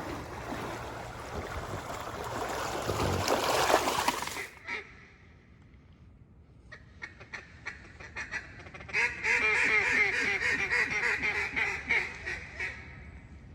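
Rapid, chattering duck quacking, a dense run of quick notes lasting about three and a half seconds, near the end. Before it, a rushing noise builds and then cuts off suddenly about four and a half seconds in, followed by a few scattered clicks.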